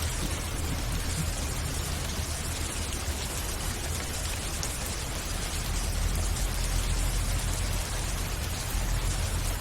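Steady heavy rain in a thunderstorm, a dense even hiss of falling rain, over a continuous low rumble that swells slightly about six seconds in and again near the end.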